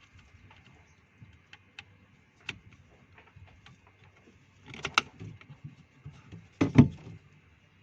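A cover being pushed into place on a car door latch assembly: scattered light clicks and taps, a quick cluster of sharper clicks about five seconds in, then two loud knocks just before seven seconds.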